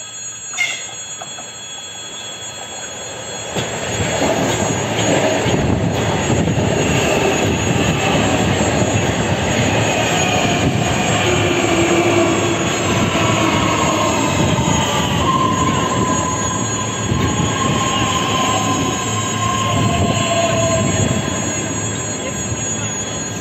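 Ivolga electric multiple-unit train approaching and running close past, its wheels rolling loudly on the rails with high squeals that slide down in pitch. There is a brief sharp sound about a second in, and the train grows loud from about four seconds in.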